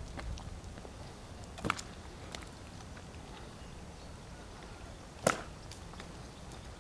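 A small dog playing with a balloon in the street: faint outdoor background broken by two short, sharp taps, a softer one under two seconds in and a louder one about five seconds in.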